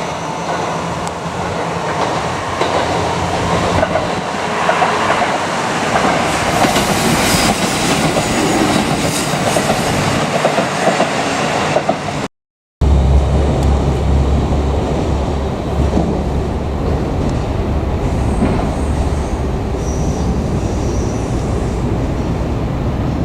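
JR Kyushu KiHa 200 diesel railcar running by, wheels clattering over the rail joints with some wheel squeal and the rumble of the train. The sound breaks off briefly about halfway, then a heavier low rumble of the railcar carries on.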